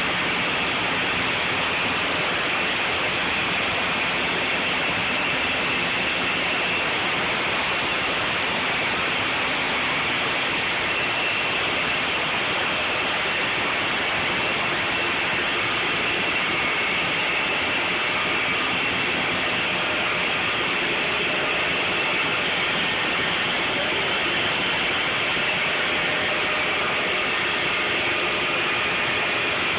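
Olive oil mill machinery running: a steady, dense mechanical noise from the motors and gear drives, with faint high whining tones.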